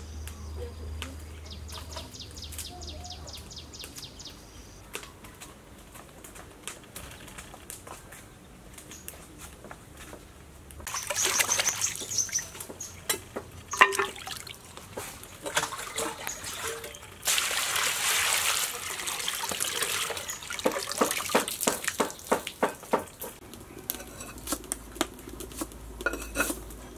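Hands washing leafy greens in a basin of water: bouts of splashing and dripping with sharp little slaps of water, the loudest about halfway through.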